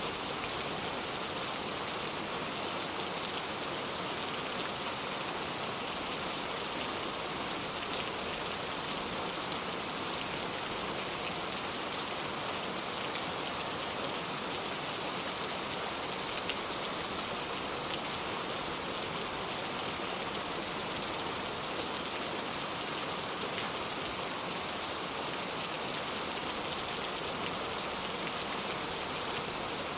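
Steady rain falling on surfaces, an even hiss dotted with many small drop ticks, with no let-up.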